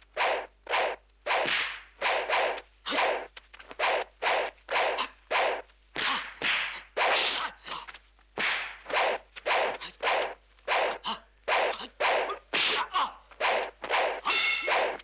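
Kung fu film fight sound effects: a rapid run of swishing whooshes from staff swings and blows, about two a second. A ringing tone enters near the end.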